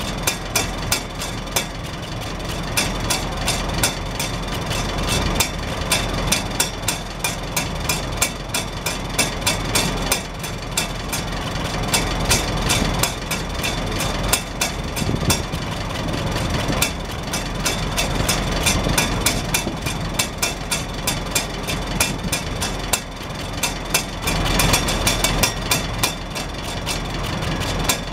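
Farmall Super H's four-cylinder gasoline engine idling steadily, heard close to the exhaust stack. The exhaust pulses come as an even run of sharp knocks, and the hinged rain-cap flapper bobs and taps on the stack with them.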